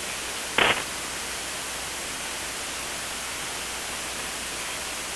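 Steady hiss of HF band noise from a Hermes-based SDR receiver demodulating single-sideband voice with no station transmitting, with one short burst of noise about half a second in.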